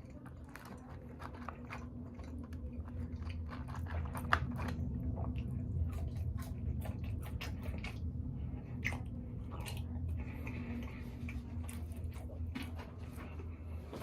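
A person chewing and biting food close to the microphone: many wet, irregular mouth clicks and crunches over a low, steady chewing sound.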